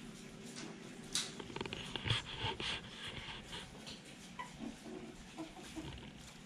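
Seven-week-old poodle puppies playing: a flurry of small high squeaks and yips with scuffling clicks in the first half, then only a few scattered ones.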